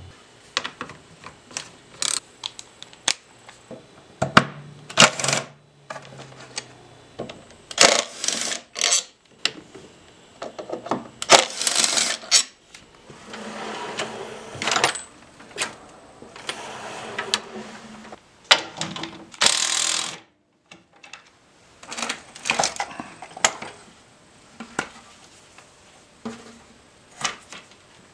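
Chrome sockets, extensions and ratchets clinking and rattling as they are handled and set down in a steel toolbox drawer: irregular sharp metallic clinks, with a few longer rattles.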